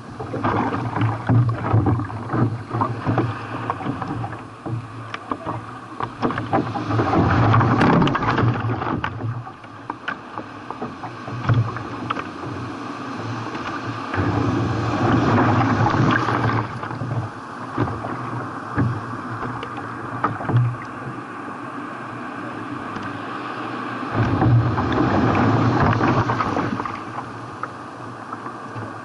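Sea water splashing and rushing around a kayak in the waves, with many small splashes. It swells in four louder surges a few seconds long as the boat meets the waves.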